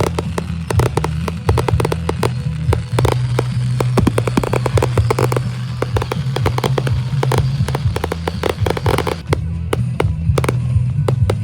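Fireworks going off: rapid, dense crackling and popping, many reports a second, continuing throughout.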